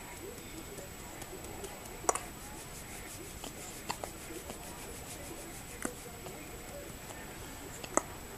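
A newborn baby hiccuping: four short, sharp hics about two seconds apart.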